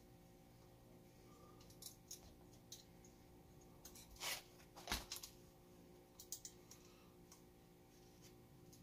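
Faint clicks and light knocks of small parts and a thin hand driver being worked on an RC truck's steering assembly, with two sharper clicks about four and five seconds in, over quiet room tone.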